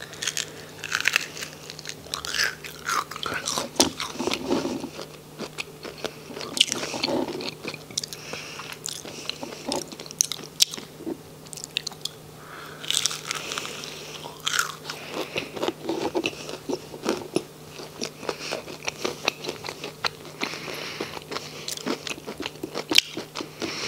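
Crunching and chewing of crispy fried onion rings: an irregular run of sharp, crisp crackles as each bite is chewed.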